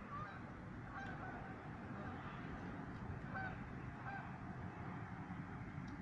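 Geese honking a few short times, over a steady low rumble.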